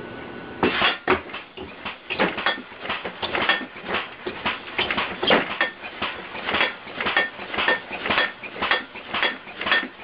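Compressed-air-driven alarm bed jolting over and over, its frame banging and rattling about two or three times a second, starting about half a second in.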